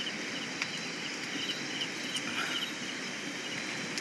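Outdoor ambience: insects chirping and trilling steadily in short repeated pulses over a steady background hiss, with a few faint clicks.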